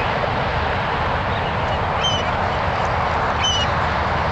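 Wild birds calling, two short high call notes about two and three and a half seconds in, over a steady background rumble.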